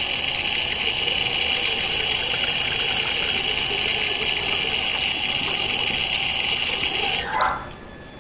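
Tap water running steadily into a sink, splashing over a plastic packet of chicken being rinsed under it, then turned off near the end.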